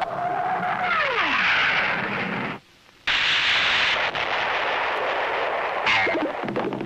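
Cartoon sound effects: a whistle holding one note, then sliding down in pitch, and after a brief silence about three seconds in, a long explosion-like blast of noise.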